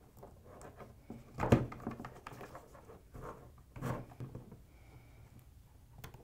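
Wire and tools being handled in a plastic switch enclosure: PV cable pushed through a cable gland and needle-nose pliers worked at the terminals, making scattered light clicks and knocks, the sharpest about one and a half seconds in and smaller ones near three and four seconds.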